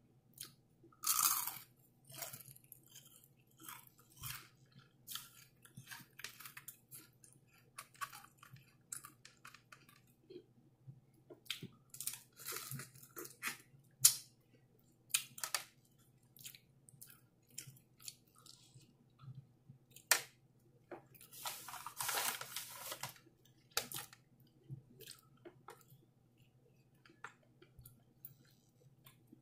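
Close-up chewing and biting of crispy KFC fried chicken: irregular crunches of the fried coating between quieter chewing. Denser, louder runs of crunching come about a second in and again past the twenty-second mark.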